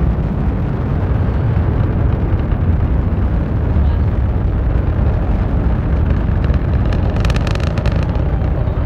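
Deep, steady rumble of a SpaceX Falcon 9 rocket's nine Merlin first-stage engines climbing after liftoff, heard at a distance from the launch. A brief burst of crackling comes about seven seconds in.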